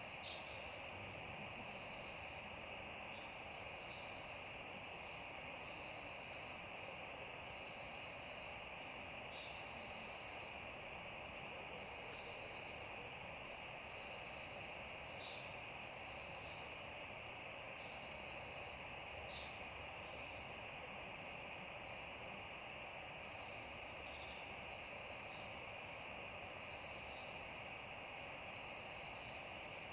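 Night insect chorus: a steady high trill that holds without a break, with scattered shorter chirps over a faint even hiss.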